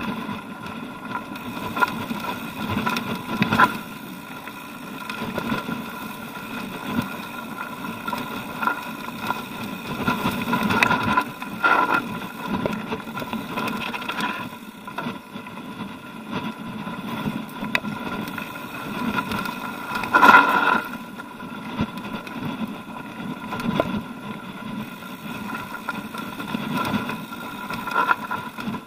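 Orbea Alma hardtail mountain bike rolling over loose stony singletrack: tyres crunching on gravel and the bike rattling over rocks, with repeated sharp jolts, the hardest about twenty seconds in.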